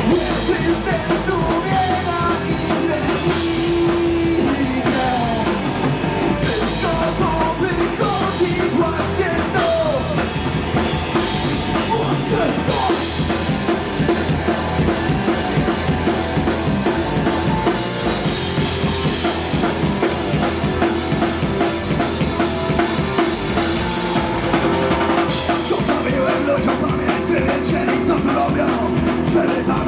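Live rock band playing loud and steady: drum kit, electric guitar and bass guitar, with a vocalist singing over them.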